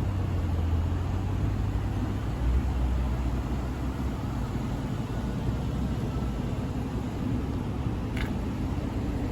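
A 2015 Aston Martin Vanquish's naturally aspirated 6.0-litre V12 idling steadily with a low, even note, not being revved.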